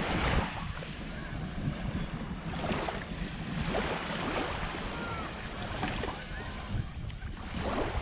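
Small waves lapping and washing up on a sandy shore, swelling every couple of seconds, with wind rumbling on the microphone.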